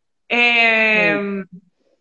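A woman's drawn-out filled pause, one held vowel sound ("eeeh") at a steady pitch for about a second, dipping slightly at its end, as she hesitates before going on.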